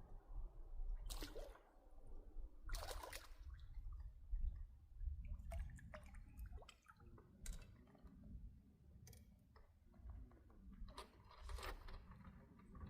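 Faint water sloshing and splashing in a few short bursts, with scattered small clicks over a low rumble.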